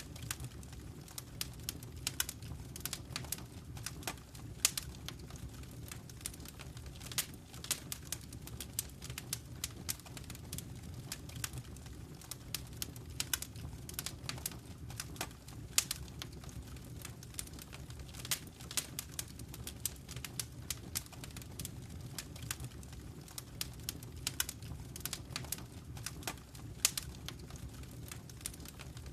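Wood fire burning in a fireplace, with a steady low rumble of flames and dense, irregular crackles and snaps, a few louder pops among them.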